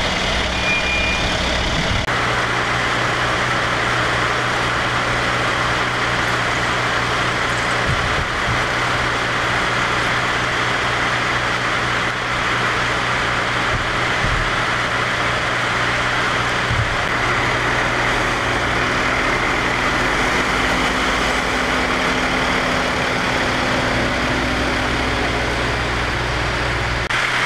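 Fire engine running steadily at idle, a low rumbling hum, with a steady rushing noise over it. Its low tone changes about two seconds in.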